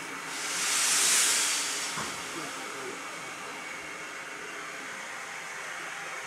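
A brief hiss of escaping steam from a steam locomotive, swelling and fading away within about a second and a half, over a faint background of voices.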